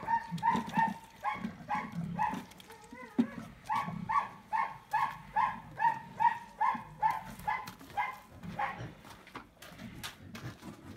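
A domestic pig held down on its side with its snout in a bucket gives short, regular squeals, about two a second. They stop about nine seconds in.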